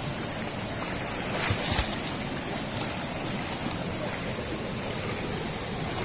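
Stream water running and rushing over rocks below a small waterfall, a steady noise with a brief louder swell about a second and a half in.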